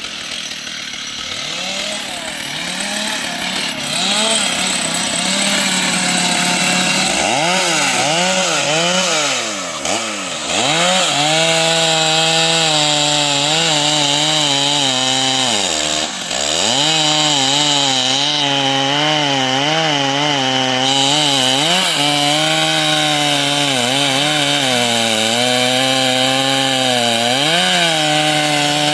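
Stihl two-stroke chainsaw cutting wood at high revs. Its pitch keeps wavering as the chain loads in the cut, and twice it drops sharply and then climbs back.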